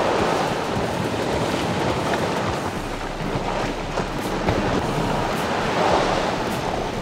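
Sea surf washing and breaking against the shoreline rocks, a steady rushing noise.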